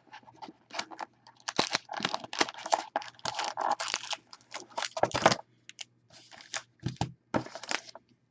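A retail box of trading card packs being torn open and its packs pulled out: irregular tearing, crinkling and rustling of cardboard and wrapping.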